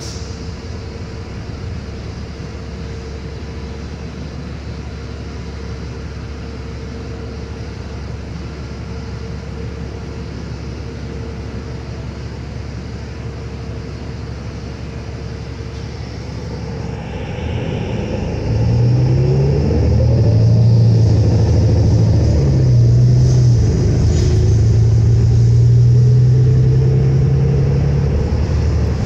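Interior of a 2022 New Flyer Xcelsior XD40 diesel transit bus. A steady low rumble for the first part, then about seventeen seconds in the engine grows louder as the bus accelerates. Its note steps and breaks several times as the automatic transmission shifts, with rising whines over it.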